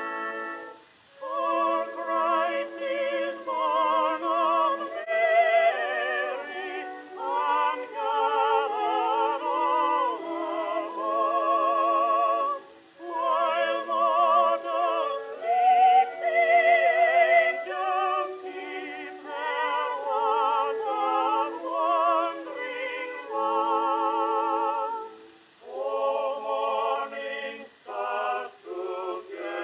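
Music with operatic singing: held, wavering notes in phrases broken by short pauses.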